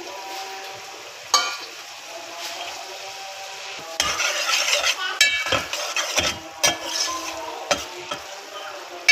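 Metal spoon stirring taro root slices into masala gravy in an aluminium pot, knocking and scraping against the pot, with the gravy sizzling on the heat. The first few seconds hold only a single clink, about a second and a half in. Steady stirring starts about four seconds in, with repeated knocks and scrapes.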